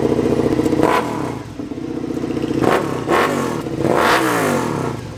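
Suzuki motorcycle engine with an aftermarket exhaust idling, then revved several times during a sound check, each rev climbing in pitch and falling back to idle.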